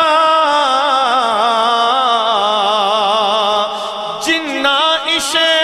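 Male voice singing Punjabi Sufi kalam without words: a long, wavering, ornamented held phrase. It eases off briefly about four seconds in, then the next phrase begins.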